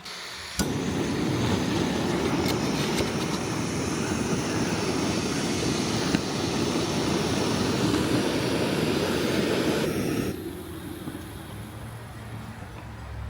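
A steady rushing noise without clear pitch starts abruptly just under a second in and stops about ten seconds in, leaving a fainter low rumble.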